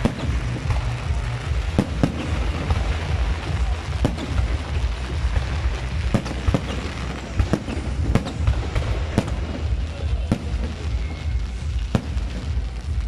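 Fireworks going off in quick succession: crackling fountains and aerial shells bursting, with many sharp irregular bangs over a continuous low rumble.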